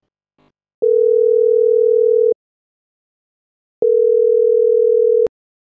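Telephone ringback tone, the ringing a caller hears after dialling: two long steady beeps, each about a second and a half, with a pause of about the same length between them. The second beep ends in a sharp click.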